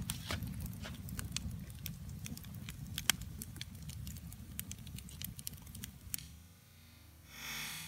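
Fire crackling and popping in a metal fire pit: irregular sharp pops over a steady low rumble. The crackling stops about six seconds in, and a hissy swell rises near the end.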